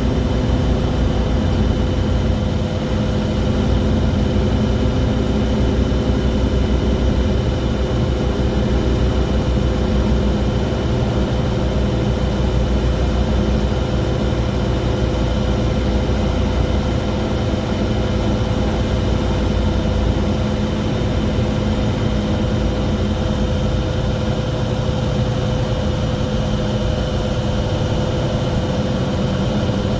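Mercedes-Benz Citaro G articulated bus running, a steady engine rumble with a loud, strange, continuous whining tone over it.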